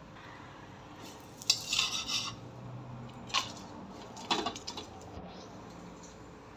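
Metal spoon clattering and clinking against a karahi while handling naan reheating in it: a short run of clatter about a second and a half in, then two sharp clinks in the middle.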